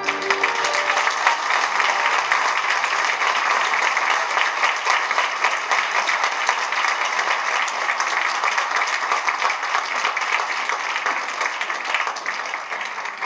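Audience applause with clapping, breaking out over the last held note of the music, then thinning out near the end.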